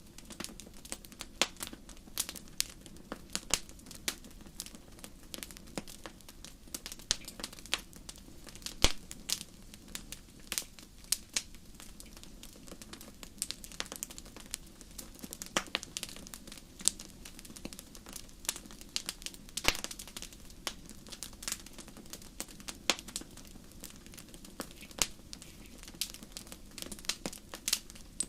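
Wood fire burning, with irregular sharp pops and crackles over a soft steady hiss.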